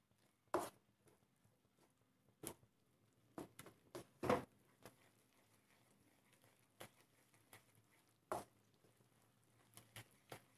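Wooden spatula scraping and tapping against a non-stick pan while stirring thick coconut masala: about a dozen short, faint strokes at uneven intervals, the loudest about four seconds in.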